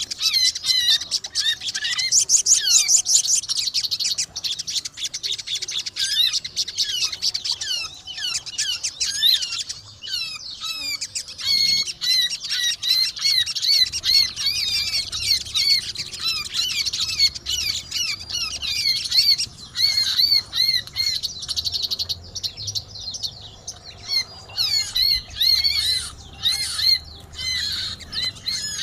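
Sogon birds and pleci (white-eyes) calling noisily together, a dense, unbroken stream of quick high chirps and twittering trills.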